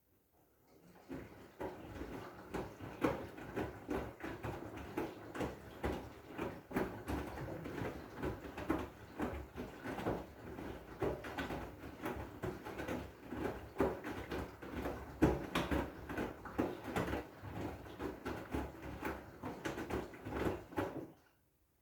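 Washing machine drum turning a load of blankets: a dense, irregular patter of soft knocks that starts about a second in and stops abruptly near the end.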